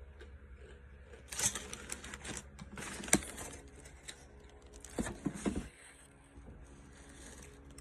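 Rustling and crinkling as a sub sandwich is handled and eaten, in two bursts, with one sharp click about three seconds in.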